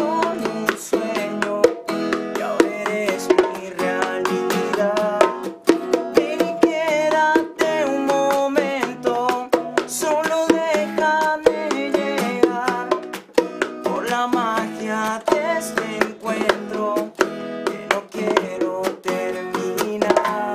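Live acoustic guitar strumming with a man singing and hand-played bongo hits.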